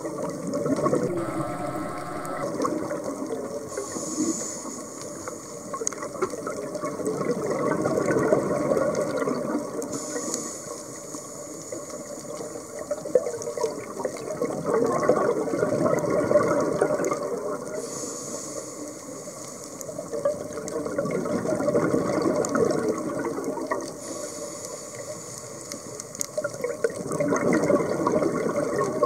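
Scuba diver breathing through a regulator underwater: a thin hiss on each inhale, then a longer gurgling rush of exhaled bubbles. The cycle repeats every six or seven seconds.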